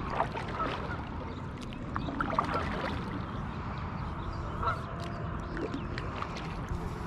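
Waterfowl calling a few times, short honks near the start, about two seconds in and near five seconds in, over a steady low rumble of wind and water.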